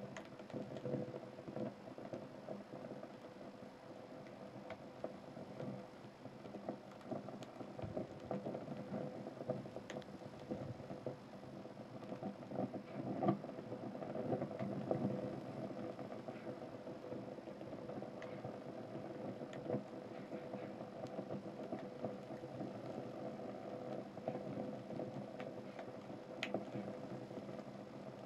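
Burning sneakers crackling, with scattered faint ticks and pops and a slightly busier cluster about halfway through, over a steady low rumble.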